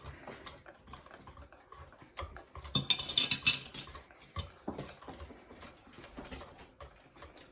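Pancake batter being stirred in a mixing bowl, the utensil clicking and scraping against the bowl in an irregular run of taps, louder for a moment about three seconds in.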